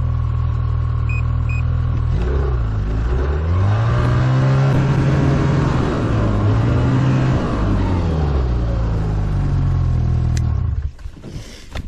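Snowmobile engine running steadily, then revving up about two seconds in as the sled pulls away, holding high speed and then easing off; the engine sound drops away sharply near the end.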